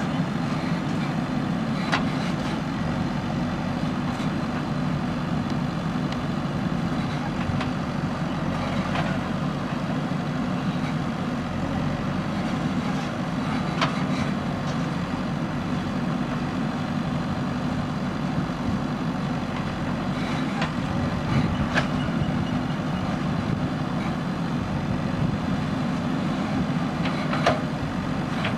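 JCB backhoe loader's diesel engine running steadily under load while digging, with a few short sharp knocks.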